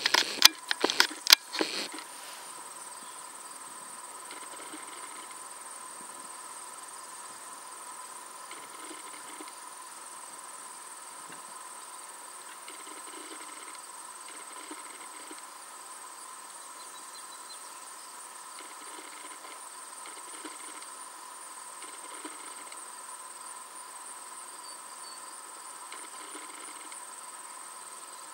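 Crickets and other summer insects chirring in a steady, even chorus, with a softer call that comes and goes every few seconds. A burst of sharp clicks and knocks in the first two seconds is the loudest sound.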